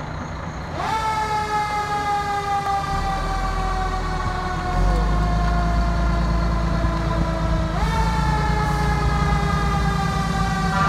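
Fire truck siren heard up close, twice jumping quickly up to a high pitch and then sinking slowly over several seconds. Beneath it the truck's engine makes a low rumble that grows louder about five seconds in as the truck moves off.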